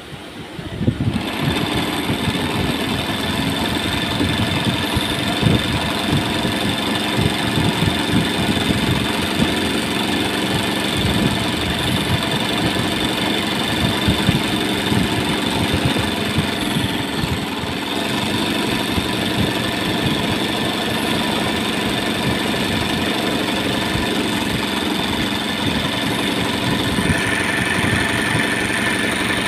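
Embroidery sewing machine starting about a second in and then running steadily at speed, the needle stitching fast while the hooped fabric is guided by hand. Its tone shifts slightly near the end.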